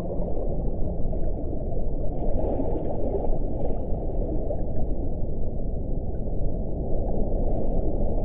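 Underwater ocean ambience: a dense, steady low rumble, with the end of a held whale call fading out just at the start.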